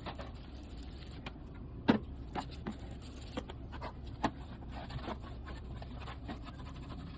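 Scrubbing a plastic refrigerator tray soaked in cleaner: irregular short scrapes and light plastic knocks, with sharper knocks about two seconds in and again about four seconds in, over a faint steady low hum.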